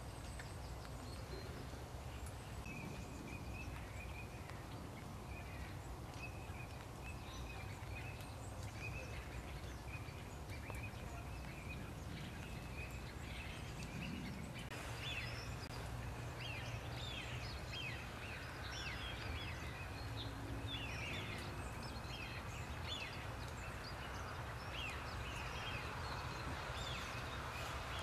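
Outdoor wetland ambience: a steady low rumble with many small birds calling and singing in the background, the calls growing busier from about halfway through.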